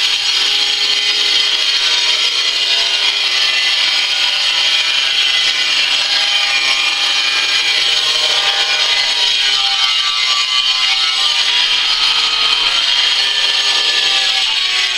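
Handheld angle grinder cutting a tile: a steady, harsh grinding that holds at an even level throughout.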